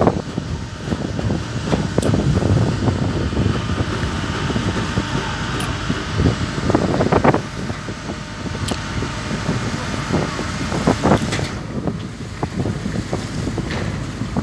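Strong wind blowing across the microphone, a rough low rumble that rises and falls in gusts.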